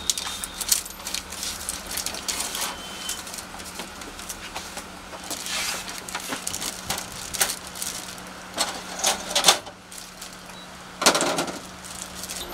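Plastic packaging rustling and crinkling, with scattered clicks and knocks of parts being handled in a photocopier's pull-out paper tray, over a faint steady low hum.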